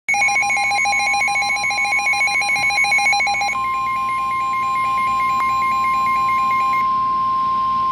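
NOAA Weather Radio's steady 1050 Hz Warning Alarm Tone, with the weather radio's own electronic alert beeper pulsing over it: a rapid warble for about the first three and a half seconds, then slower beeps that stop about seven seconds in, leaving the steady tone alone.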